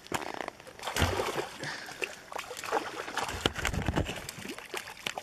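Water splashing and sloshing at the surface as a small hooked chain pickerel thrashes close to shore, with scattered clicks.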